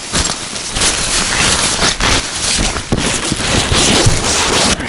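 Nylon fabric of an umbrella ice-fishing tent rustling and flapping as it is unfolded, a loud dense crackling that cuts off suddenly near the end.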